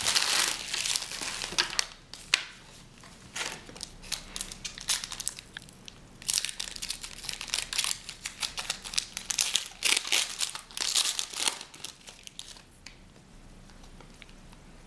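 Foil trading-card pack wrappers crinkling and tearing as packs are handled and ripped open, in irregular bursts that die down near the end.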